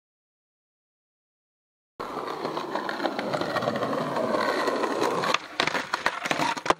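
Silence for about two seconds, then skateboard wheels rolling steadily on concrete. A little after five seconds the rolling cuts out as the board leaves the ground, followed by sharp clacks and scraping of the board on a stone ledge, the loudest clack near the end.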